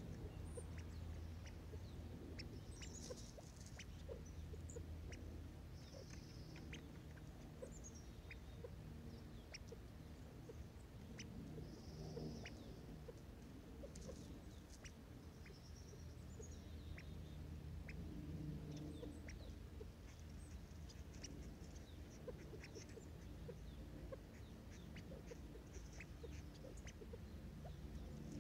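California quail pecking at scattered birdseed close to the microphone: a faint, irregular run of small sharp clicks, with soft high notes now and then over a low steady hum.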